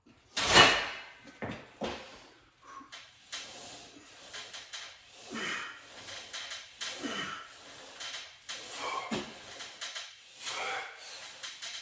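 Lat pulldown machine in use: a loud clank about half a second in, then the weight stack and cable knocking and sliding about every one and a half to two seconds as repetitions are pulled.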